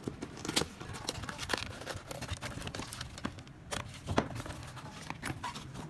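Packaging being handled and opened in an unboxing: irregular crinkling of plastic wrap with sharp clicks and small tearing sounds.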